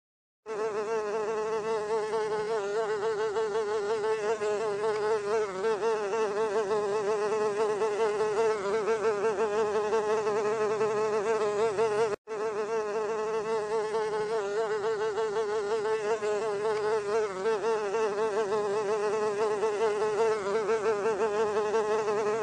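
Housefly buzzing: a steady, fast-wavering wing drone that starts about half a second in and cuts out for an instant about twelve seconds in before carrying on.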